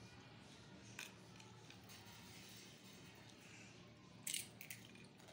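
Near-silent room tone with a light click about a second in, then two brief crisp crunches near the end as a child bites a salted papad snack.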